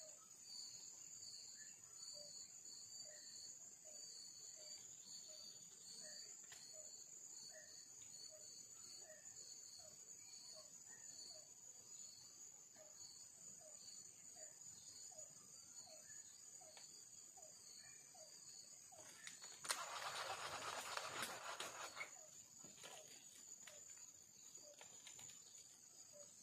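Faint forest insects: a steady high-pitched buzz with a rhythmic high chirping over it, and a faint low call repeating a little under twice a second. About twenty seconds in, a louder noise lasts about two seconds.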